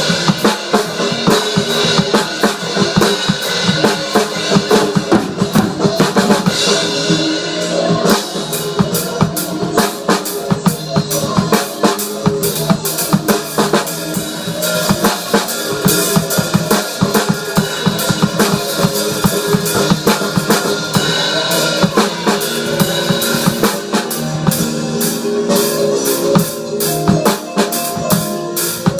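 Drum kit played continuously, a fast, dense run of strokes with no break.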